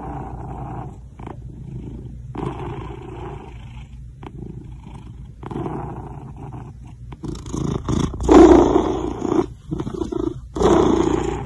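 Domestic cat vocalizing in a run of low, rough calls with short pauses between them, the loudest about eight seconds in.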